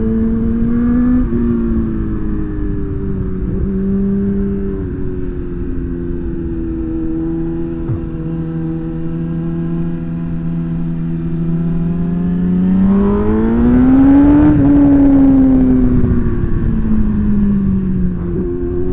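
Sport motorcycle engine running at a steady cruise under wind noise on the microphone. About thirteen seconds in its pitch climbs as the throttle is rolled on, then eases back down.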